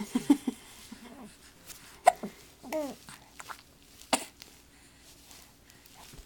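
Infant hiccuping: sharp hiccups about two seconds in and again about four seconds in, with short high-pitched vocal squeaks from the baby around them.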